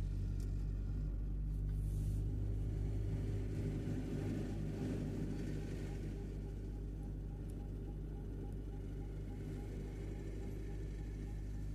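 Van engine and road noise from inside the cab while driving slowly, a steady low hum. A faint regular ticking runs for several seconds in the middle.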